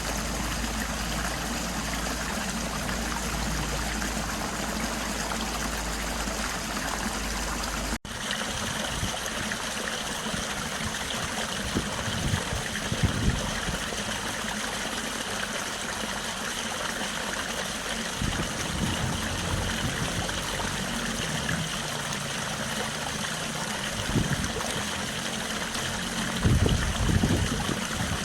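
Stream water running steadily, a continuous rushing flow, with an abrupt break about eight seconds in and a few brief low rumbles later on.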